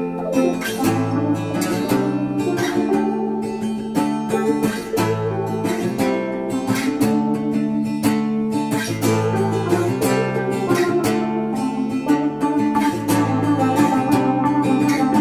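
Background music of steadily picked acoustic guitar, with banjo- or mandolin-like plucked strings.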